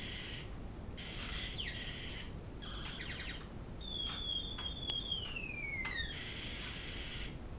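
Battle sound effects from a TRW light-up toy yo-yo's electronic sound chip: buzzy electronic tones, a wavering tone near the middle, and a laser-like zap falling in pitch about two-thirds of the way in. Short sharp clicks come between the effects.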